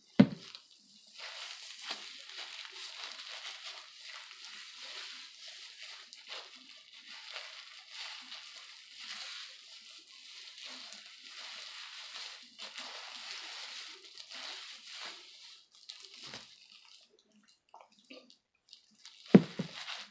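Plastic-gloved hands rubbing hair bleach through wet hair, an irregular wet rustling that comes and goes. There is a loud knock just after the start and another near the end.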